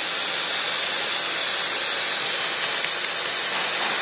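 A steady, even high-pitched hiss that does not change.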